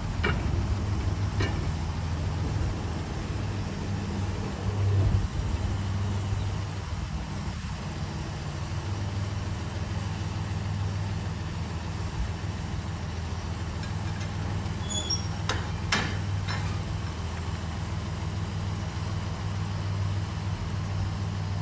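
Galloping Goose rail motorcar's engine running with a steady low drone as the car backs along the track. There are a couple of sharp clicks near the start and a few more clanks with brief high squeaks about 15 to 16 seconds in.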